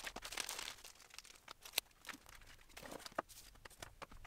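Plastic packaging crinkling briefly at the start, then scattered light clicks and taps as small parts are handled and set down on the tabletop.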